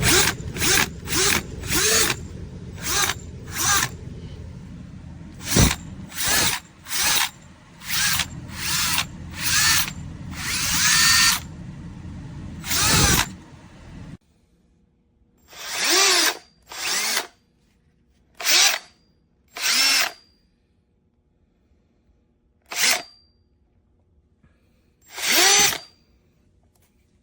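Milwaukee 18 V cordless drill/driver run in a long series of short trigger pulls, its motor spinning up and winding down each time. About a dozen quick runs sit over a steady background hum, and then, after a sudden drop in the background about halfway through, several more runs are spaced further apart.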